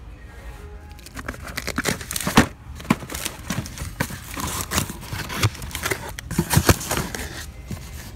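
Cardboard shipping case being pulled open and rummaged by hand, its flaps scraping and rustling as packaged toy cars inside are shuffled. It is an irregular run of scrapes and knocks that starts about a second in.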